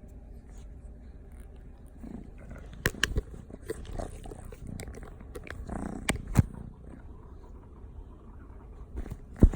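Savannah kitten growling in low rumbles for several seconds, the sound of an angry kitten. Several sharp knocks come through, the loudest near the end.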